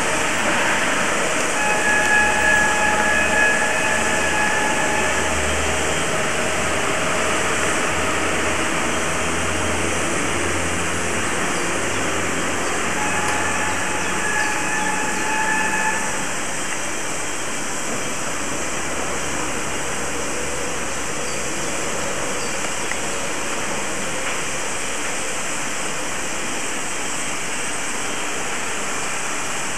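Class 03.10 steam locomotive standing at the coaling stage with a steady loud hiss of steam. A high machine whine comes in twice over it, near the start and again about halfway through.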